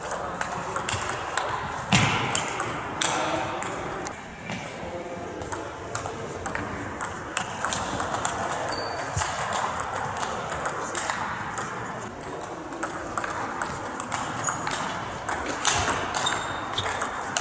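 Table tennis balls clicking off bats and tables during rallies, many sharp ticks in quick runs one after another.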